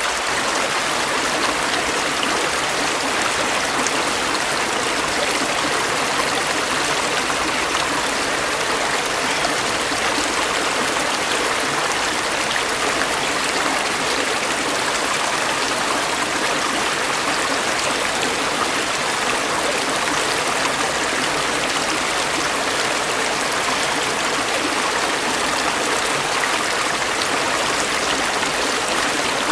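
Stream water flowing and babbling over rocks, a steady rushing and trickling without a break.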